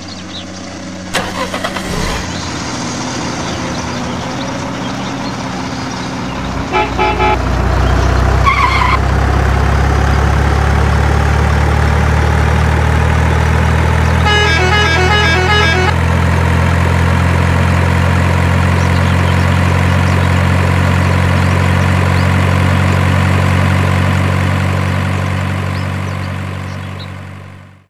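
Heavy truck engine running steadily, getting louder about seven seconds in. Horn toots sound twice: a short patterned burst about seven seconds in, and a longer run of quick multi-tone notes between about fourteen and sixteen seconds. The engine fades out at the end.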